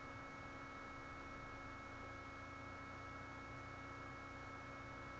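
A steady hum made of several fixed tones over a faint low rumble, which firms up about two seconds in, with no change in pitch.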